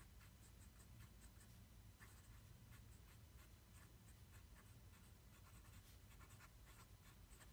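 Medium nib of a Platinum 3776 fountain pen writing capital letters on paper: faint, short scratchy strokes in an irregular rhythm, one letter stroke after another.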